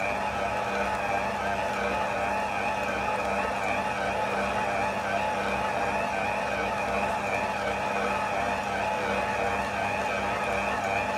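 Household stand mixer's motor running steadily with an even hum, its attachment kneading a thick paste of pollen, honey and powdered sugar in a steel bowl.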